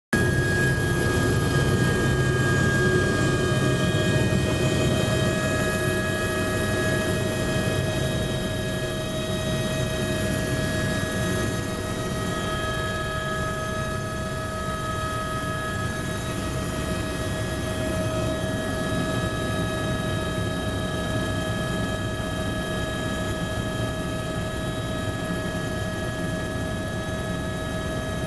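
Helicopter turbine and rotor heard from inside the cabin during takeoff and climb: a steady whine of several held tones over a dense low rumble, a little louder for the first ten seconds or so.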